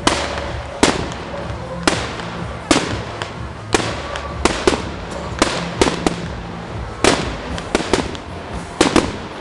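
Fireworks finale: aerial shells bursting one after another in a rapid, irregular series of sharp bangs, more than one a second.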